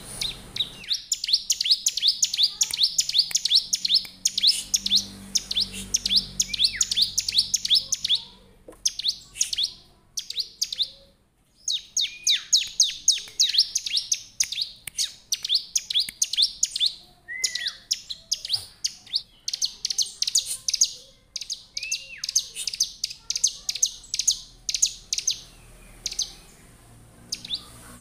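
Caged bar-winged prinia (ciblek) singing in long runs of quick, high, sharp chirps, about five a second, broken by short pauses, with a few lower down-slurred notes mixed in.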